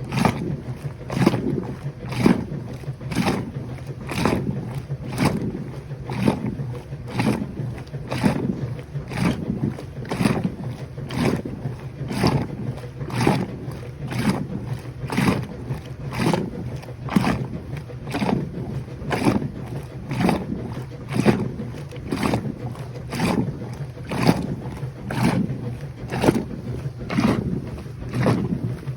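Koblenz 15 kg washing machine agitating a load: water and clothes swish back and forth in regular surges, a little under two a second, over a steady low motor hum.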